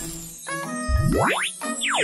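Cartoon background music with a sweeping sound effect that rises steeply in pitch about a second in, then falls back down near the end, like a springy 'boing'.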